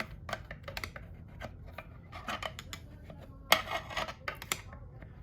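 Screwdriver tip clicking and scraping against metal parts inside a 4L60E transmission case while pushing the band anchor into place: a run of light metallic clicks, with a louder cluster of scrapes a little past halfway.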